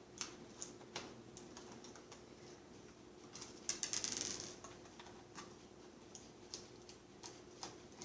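Faint scattered clicks and ticks of a screwdriver and fingers working on a laptop's plastic screen bezel, with a short rattling scrape about three and a half seconds in.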